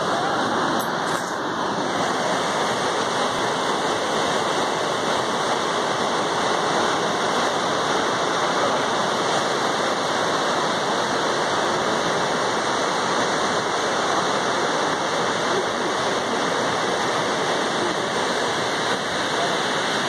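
A tall waterfall plunging into a deep gorge: a steady, even rush of falling water that does not change.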